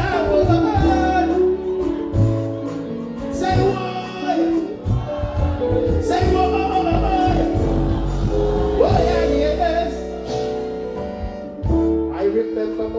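Live reggae performance: a male singer singing into a microphone over a band or backing track with a steady deep bass, through a stage PA.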